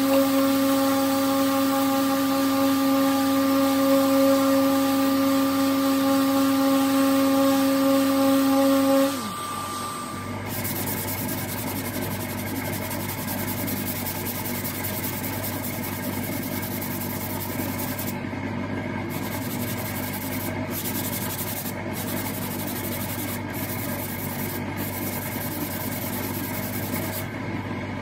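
Sanding on car body panels: a power sander runs with a steady hum for about nine seconds, then is switched off, its pitch sliding down as it winds down. A quieter, steady rubbing noise follows.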